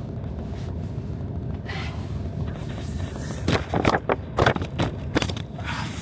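Storm-force blizzard wind with a steady low rumble, broken a little past halfway by a quick run of about five loud, sharp gusts.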